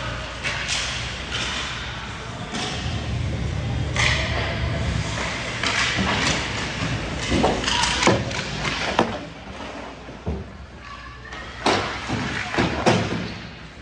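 Irregular thuds and knocks echoing in a large hall, with several sharp ones in the second half.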